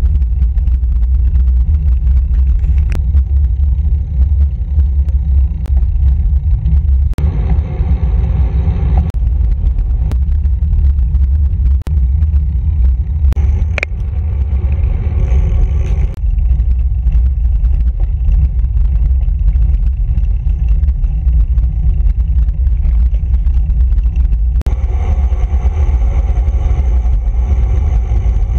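Wind buffeting the microphone of a handlebar-mounted action camera on a road bike riding at speed: a loud, steady low rumble, with a few sharp clicks.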